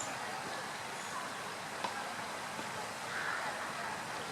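Steady outdoor hiss of running water or wind, with a brief faint high bird chirp about a second in.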